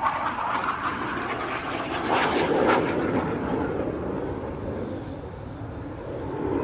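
A British Aerospace Hawk T1A jet trainer's Rolls-Royce Turbomeca Adour turbofan, roaring as the jet flies overhead. The roar swells to its loudest and harshest about two to three seconds in, eases off, then builds again near the end.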